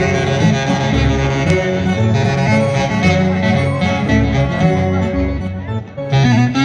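Live band playing Greek folk dance music, with a plucked stringed instrument over a steady bass line. The music dips briefly near the end, then comes back in.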